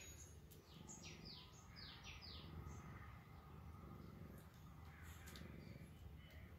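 Faint bird chirps: a quick run of about five short, high notes, each falling in pitch, starting about a second in, over a low steady background hum.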